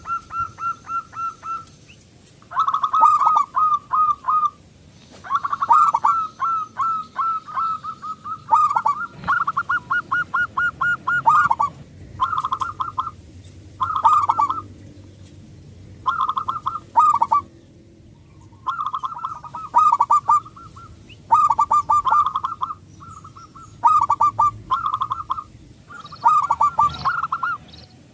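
Local zebra dove (perkutut) cooing its full-voiced song: repeated phrases of rapid stuttering notes, each phrase a second or two long, separated by short pauses.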